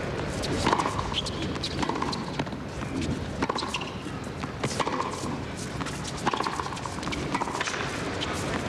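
Tennis rally on a hard court: rackets striking the ball and the ball bouncing, trading back and forth every second or so.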